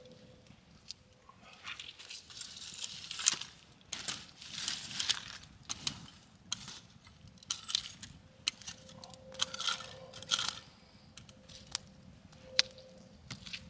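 Packaging and chips being handled: irregular crinkling and crunching in short clusters, with many sharp clicks in between.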